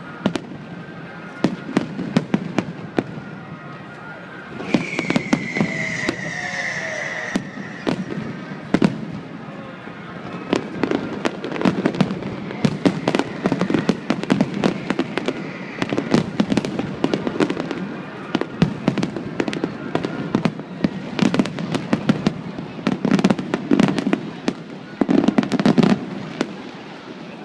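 Aerial fireworks display: a dense, irregular run of sharp cracks and crackles over deeper booming shell bursts, with a falling whistle about five seconds in.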